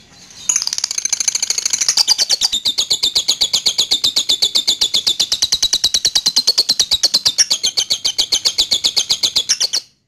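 Lovebird singing a long unbroken run of rapid chattering chirps, about nine a second, the continuous chatter (ngekek) that lovebird keepers prize. It starts about half a second in and cuts off just before the end.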